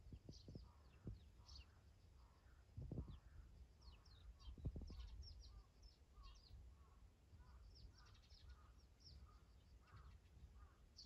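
Faint outdoor birdsong: small birds chirping high up, with a lower call repeated about every half second to a second, and a few soft thumps in the first five seconds.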